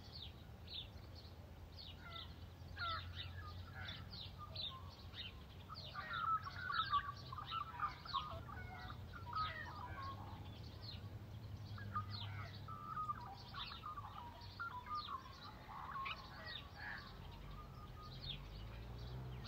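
A chorus of many birds chirping and calling, short high chirps and whistles overlapping, busiest in the middle, over a steady low rumble.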